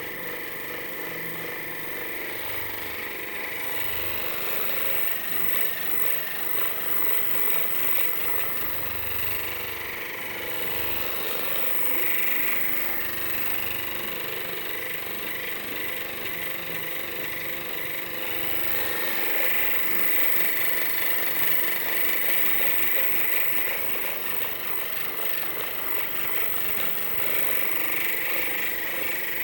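Handheld electric massager running steadily with a buzzing motor hum, growing louder at times as it is pressed and moved over the back muscles to loosen tightness.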